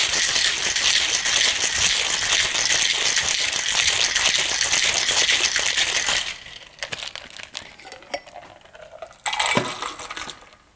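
Crushed ice rattling hard inside a metal cocktail shaker as it is shaken for about six seconds. Then scattered light clinks, and a short burst of ice and liquid as the drink is poured from the shaker tin into a glass near the end.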